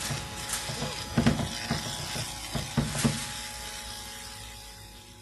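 Electric chair sound effect: a crackling electrical buzz over a low hum, with several sharp cracks in the first three seconds, fading away near the end.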